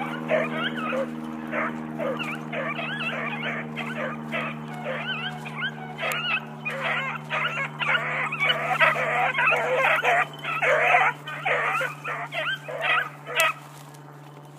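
Two beagles baying in short, high yelping calls that overlap, the sound of hounds giving tongue on a rabbit's trail. The calls come thickest about halfway through and thin out near the end, over a steady low hum.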